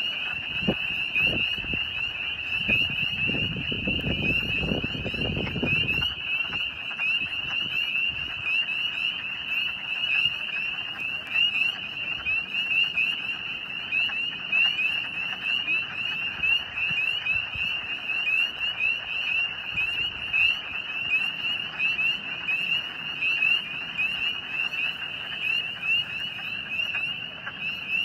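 A dense chorus of spring peepers, many high, short rising peeps overlapping without a break, with wood frogs clucking more faintly beneath. Low rustling through dry grass during the first six seconds or so.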